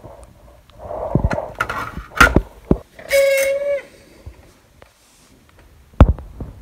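A few knocks and clicks, then a steady pitched tone lasting under a second about three seconds in, and a single sharp knock near the end.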